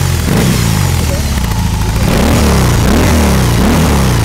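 BMW R 18's 1800 cc two-cylinder boxer engine running. About halfway through it is revved in a quick series of throttle blips, the pitch rising and falling with each one.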